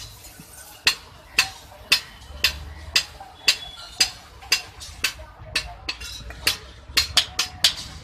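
Hand hammer striking hot iron on an anvil in steady forging blows, about two a second, each with a short metallic ring; near the end the blows come faster in a quick run.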